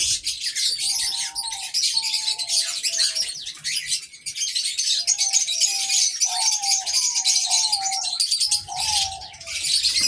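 Aviary birds chirping in a dense, continuous high chatter, with a series of short, clear mid-pitched calls, a dozen or so half-second notes, running through it.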